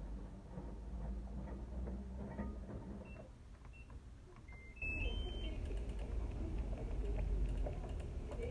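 Short electronic beeps from an LG Tromm drum washing machine's control panel, five short tones at differing pitches between about three and five and a half seconds in. About five seconds in, the machine's low running noise starts up again abruptly.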